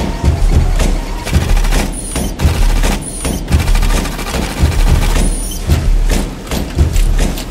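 Rapid mechanical clattering and knocking from automated seatbelt and airbag assembly machinery, cut together over a steady low thumping beat. A few short high-pitched tones and sudden brief drop-outs mark the edits.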